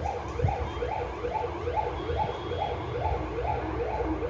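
Electronic siren or alarm sounding continuously, a rapid yelp of about four rising sweeps a second.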